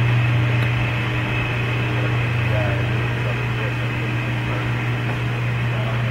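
Steady low-pitched machine hum, unchanging throughout, with faint voices in the background.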